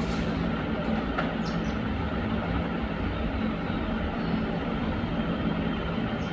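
A steady low rumbling noise with a hum dominates. A few faint, short, high bird chirps come through it about one and a half seconds in and again about four seconds in.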